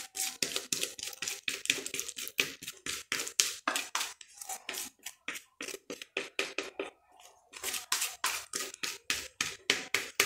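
Spatula scraping cake batter out of a stand mixer's bowl: quick repeated scraping strokes against the bowl, about four a second, with a pause of about a second past the middle.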